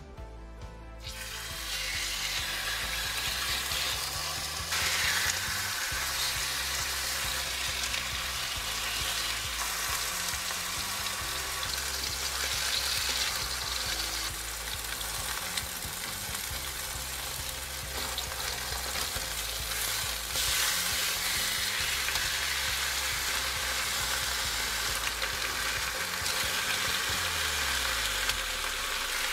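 Pork steaks sizzling steadily as they fry in hot oil in a pan. The sizzle starts suddenly about a second in.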